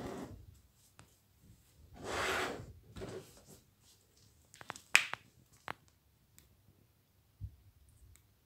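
Hands handling a pearl-beaded decorative lamp: a short rustle about two seconds in, then a few sharp small clicks, the loudest about halfway through, and a low thump near the end.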